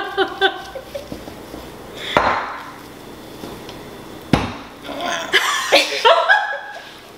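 A heavy rolling pin knocking against a stone countertop while pie dough is rolled out: two sharp knocks, about two seconds apart. Laughter comes in near the end.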